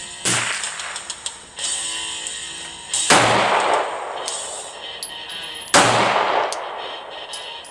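Three single gunshots fired slowly, a little under three seconds apart, each trailing off in a long echo; the last two are the loudest. Rock guitar music plays quietly underneath.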